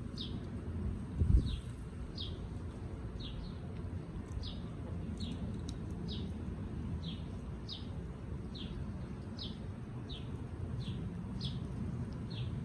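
A bird repeating a short, high, downward-sliding chirp about twice a second, over a low steady rumble. One thump comes about a second in.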